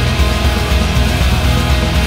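Loud post-black-metal band music, dense and continuous, driven by a fast, steady low drum pulse.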